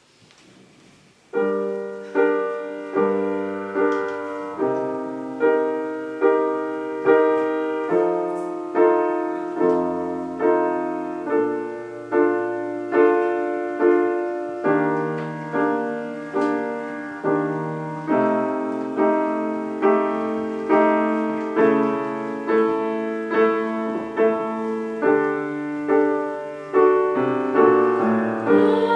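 Piano playing a slow passage of struck chords in an even pulse, a little under a second apart, each ringing and fading before the next. It begins about a second and a half in.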